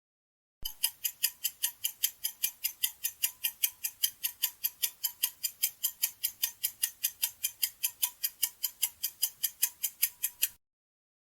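Clock-style ticking sound effect, a steady run of quick sharp ticks at about four a second for roughly ten seconds, starting and stopping abruptly: a quiz countdown timer.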